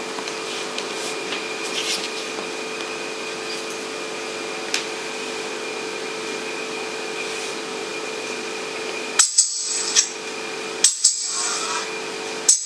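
A steady hum holding two even tones, with a few faint clicks. About nine seconds in, sharp, bright percussive hits start in an uneven rhythm, leading into the song's intro.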